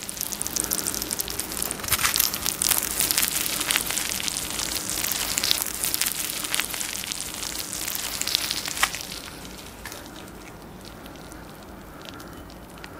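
Freshly grilled raclette cheese sizzling and crackling on the melted face of the half-wheel, dying down about nine seconds in.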